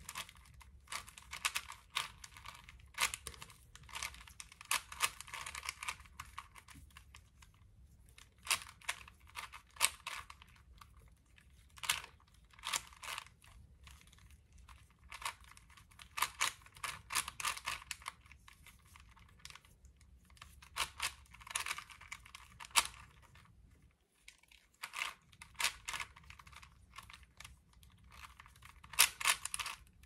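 Plastic Rubik's cube being turned by hand: quick runs of clicking and clattering as the layers snap round, broken by short pauses.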